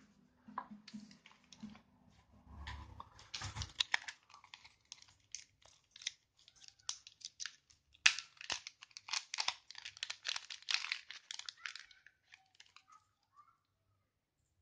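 Crinkling of a small plastic zip-lock packet being handled and opened, with quick crackles and light clicks as a small adapter is taken out of it. The crackling comes in a dense run, loudest about eight seconds in, and stops about twelve seconds in.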